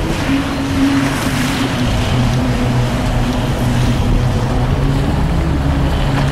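Car engine running steadily under way with road and wind noise, heard from inside the car's cabin as it drives along.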